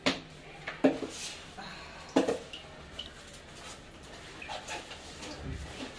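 Plastic lunch box being shut and handled: three sharp clicks and knocks in the first two seconds or so, then quieter handling and rustling as it goes into a backpack.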